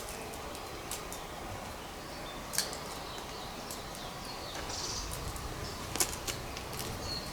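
A few short, sharp taps and scuffs of a climber's hands and shoes on rock over a steady outdoor hiss, with a low rumble coming in about five seconds in.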